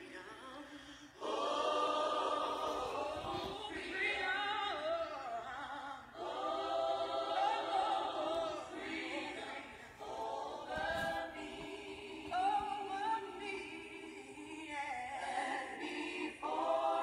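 A choir singing in long held phrases, several voices together, with short breaks between the phrases.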